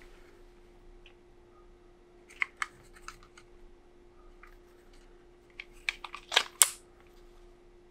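Hard plastic clicks and taps from handling a DX Rising Hopper Progrise Key toy: two or three sharp clicks about two and a half seconds in, then a quick run of clicks near the end, the loudest about six and a half seconds in. A faint steady hum lies underneath.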